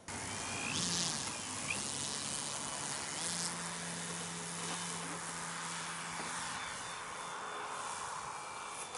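Radio-controlled model aeroplane's engine and propeller running steadily at high power through its take-off run and climb-out; the sound starts abruptly.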